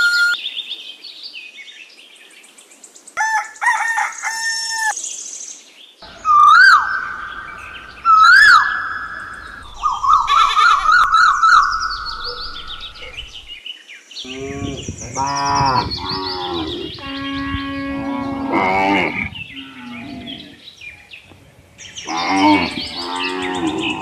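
Farmyard animal sounds: bird chirps and two sharp whistled calls in the first half, a quick warbling call, then longer, lower livestock calls from just past the middle, with birds chirping in between.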